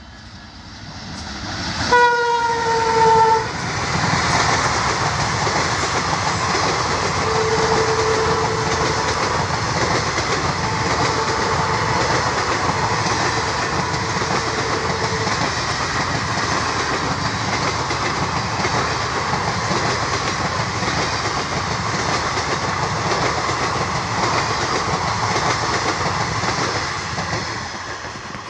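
Twin ALCO diesel locomotives approach and pass at speed, their engines growing louder. The horn sounds about two seconds in, dropping slightly in pitch as the locomotives go by, and a fainter, longer horn note follows for several seconds. The passenger coaches then roll past with a steady clatter of wheels over rail joints, which fades near the end.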